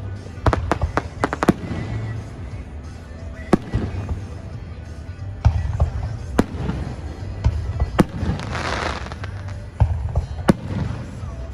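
Fireworks going off: a quick cluster of sharp bangs in the first second and a half, then single bangs about a second apart, with a longer hiss around eight seconds in.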